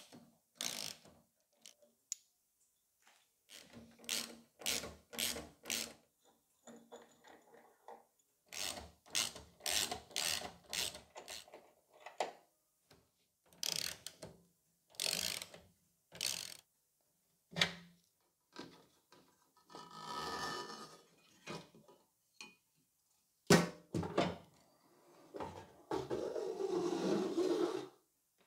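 Ratchet spanner clicking in quick runs of strokes, undoing the transit bolts on the back of a washing machine. Knocks come in between, and there are longer scraping sounds near the end.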